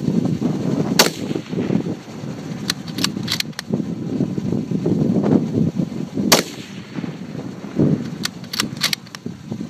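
Two .308 rifle shots about five seconds apart, with a few quieter sharp clicks between them. Steady wind rumble on the microphone runs underneath.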